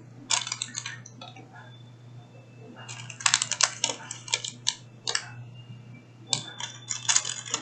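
Clicks and light rattling of small plastic craft pieces and packaging being handled on a table, in three short clusters, over a low steady hum.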